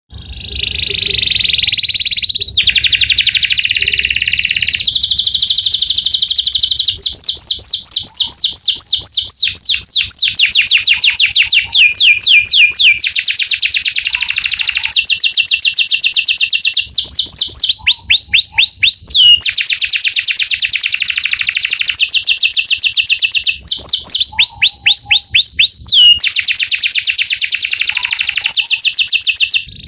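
Male canary singing continuously in fast trills and rolls: runs of rapidly repeated sweeping notes, several a second, switching to a new phrase every couple of seconds.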